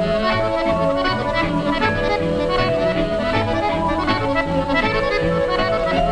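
Accordion-led band playing a lively tune, with sustained accordion chords over a regular bass line.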